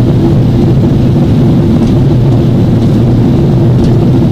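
Steady low roar inside the cabin of a Boeing 767-400ER descending in flight: engine and airflow noise heard from a window seat, with a hum of several steady low tones under it.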